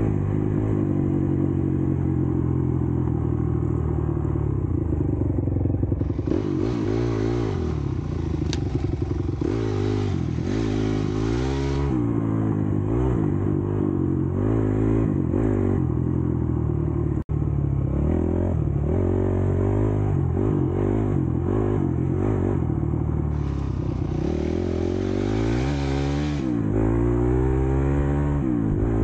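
Honda CRF250X dirt bike's four-stroke single-cylinder engine under way on a trail, its pitch rising and falling as the throttle opens and closes, with rattling from the bike. The sound cuts out for an instant about midway.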